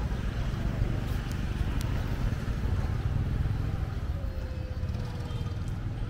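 Small motorbike engine running as it rides away down a narrow lane, a steady low rumble that eases slightly in the second half.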